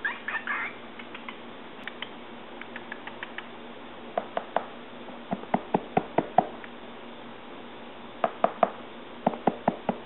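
Cockatiel gives a brief chirping call, then a series of sharp taps comes in quick runs of three to seven, starting about four seconds in.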